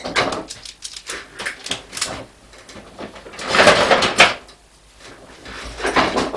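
Clicks and rattles of a power adapter's cable and hand tools being handled, with a louder rustling clatter lasting about a second, about three and a half seconds in, and a shorter one near the end.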